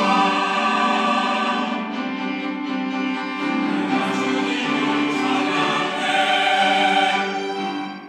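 Mixed church choir singing a hymn anthem, ending on a held final chord that fades away near the end.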